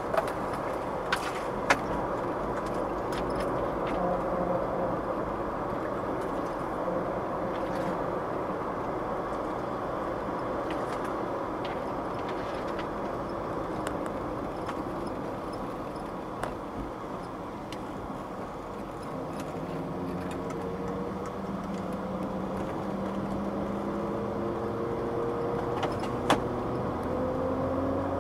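Cabin sound of a 1989 Mercedes 300 TE 4MATIC's straight-six engine and drivetrain at town speed: steady engine and road noise with a faint steady whine, which the owner puts down to the rear differential, not the engine. A few sharp clicks come near the start and one near the end. From about two-thirds of the way through, the engine's pitch rises as the car accelerates through the automatic's gears.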